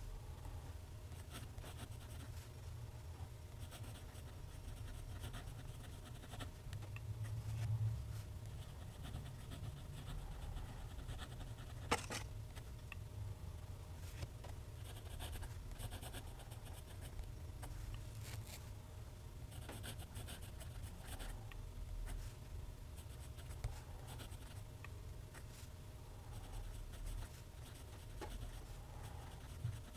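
TWSBI ECO fountain pen nib scratching faintly across Clairefontaine paper in continuous cursive handwriting, over a low steady hum. A single sharp tick stands out about twelve seconds in.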